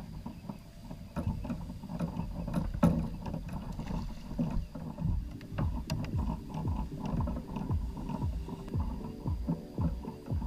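Water and hull sounds around a kayak, with low thumps about twice a second and a few sharp clicks.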